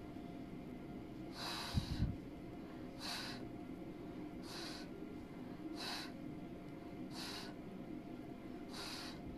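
Six short, sharp puffs of breath blown out through the mouth, about one every one and a half seconds. Two low thumps come with the first puff and are the loudest sound.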